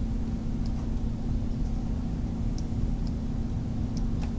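Steady low electrical hum of the recording's background, with a few faint, sparse clicks.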